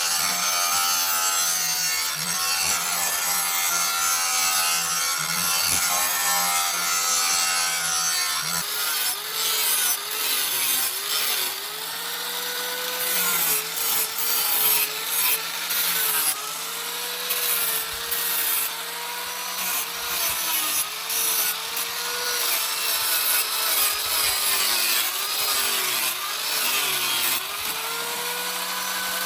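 Electric power tool grinding or cutting during knife making, with a gritty rasping hiss. Its motor pitch dips again and again as it bites into the work and climbs back when the load comes off, rising once more near the end.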